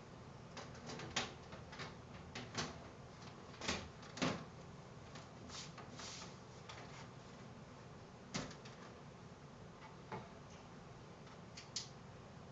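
Irregular light clicks and knocks, with a couple of louder knocks, of parts and cables being handled and fitted in a computer case around the power supply.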